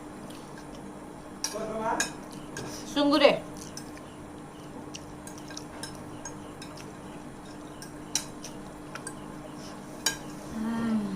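Cutlery clicking and scraping against plates as people eat noodles: scattered sharp clinks, a couple of them louder, over a steady low hum.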